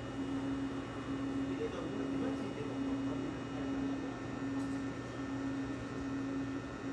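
Steady electrical hum of a stationary Eizan Electric Railway railcar's onboard equipment running at the platform.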